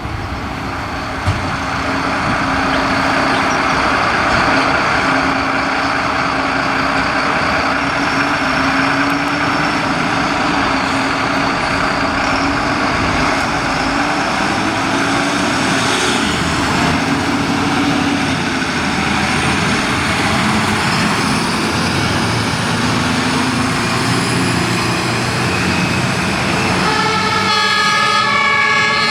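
Fire engines on an emergency run: truck engines and road noise with sirens. A loud horn with several tones sounding together starts about 27 seconds in.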